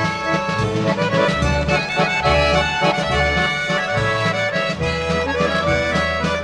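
Traditional folk music on accordion: held chords over a pulsing bass line.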